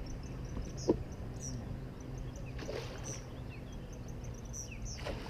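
Small birds chirping repeatedly over a steady low hum, with one sharp knock about a second in.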